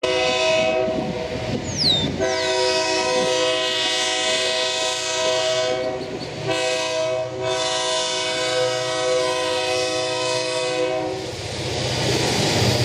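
Approaching Lake State Railway diesel locomotive's air horn sounding three long blasts, several tones at once, with the engine's low rumble underneath; it is the warning for the Willard Road grade crossing. A few short falling chirps come near the start.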